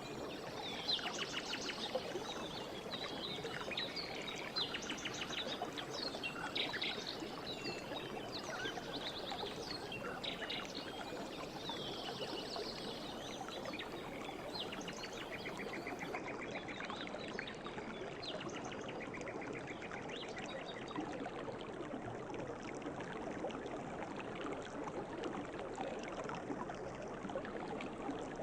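River water flowing steadily, with birds chirping and trilling over it, busiest in the first half and sparser later.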